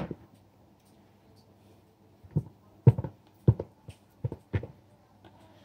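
Boiled potato being sliced by hand over a plastic bowl: short, irregular clicks and taps as the knife cuts through and the slices drop into the bowl, one at the start, then a quick run of about seven after a pause of two seconds.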